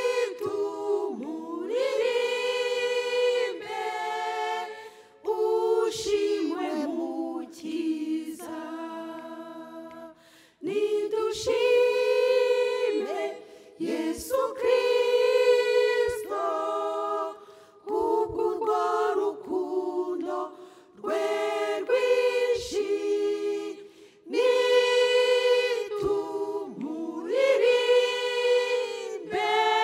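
Small choir singing unaccompanied, in held phrases with short breaks between them.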